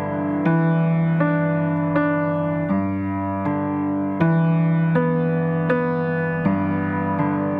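Instrumental keyboard music: sustained piano-like chords, each struck with a sharp attack and changing about every three-quarters of a second.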